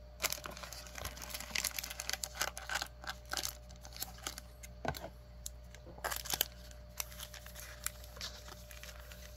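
Foil booster-pack wrappers crinkling and rustling as a handful of packs is handled and lifted out of a cardboard box, with scattered light clicks and taps throughout.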